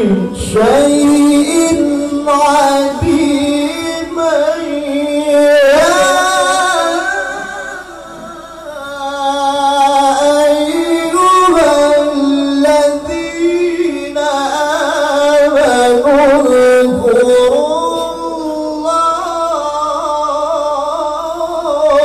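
A man reciting the Quran in melodic tilawah style into a handheld microphone, drawing out long, ornamented notes that waver and glide in pitch, with a short dip in level about eight seconds in.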